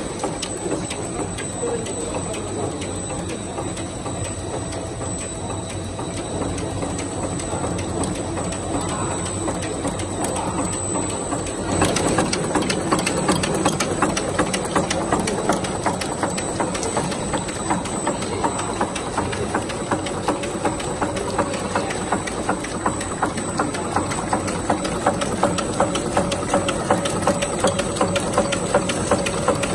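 Chewing gum production and wrapping machine running: a fast, even ticking of its mechanism over a steady machine hum, louder from about twelve seconds in.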